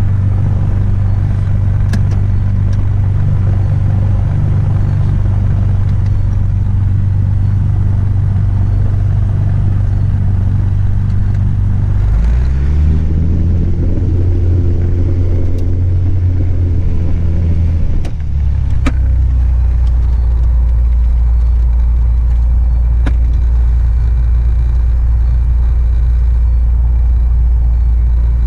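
Single-engine light aircraft's piston engine heard from inside the cabin, running steadily at low power. About twelve seconds in it speeds up, holds for about six seconds, then drops back to a lower, steady drone.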